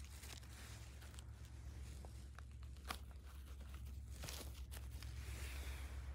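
Rustling and crackling of dry spruce needles and twigs on the forest floor as a hand works at the base of a young porcini, with a few sharp clicks of snapping litter over a steady low rumble.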